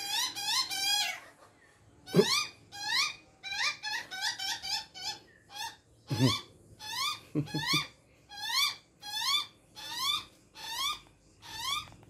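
Juvenile Australian magpie begging to be fed: a short rising squawk repeated over and over, about twice a second. A few dull knocks sound beneath the calls.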